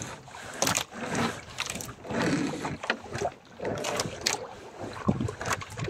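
Small wooden outrigger fishing boat drifting at sea: wind and water against the hull, broken by scattered knocks and clatter about once a second.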